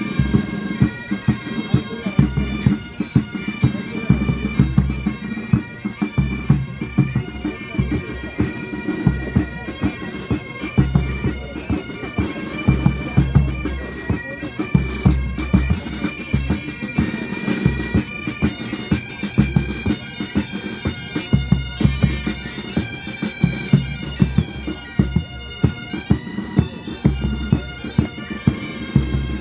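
Military pipe band playing: bagpipes sounding a melody over their steady drones, with drums beating a regular march rhythm.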